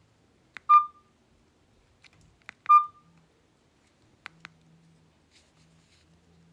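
Mobile phone giving two short beeps about two seconds apart, each coming right after a click, during a test call. Two faint clicks follow a little after four seconds in.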